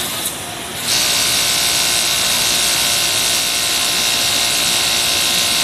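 A Kingtex industrial sewing machine starts running about a second in, then keeps a steady, loud run at speed with a high hiss while stitching knit fabric.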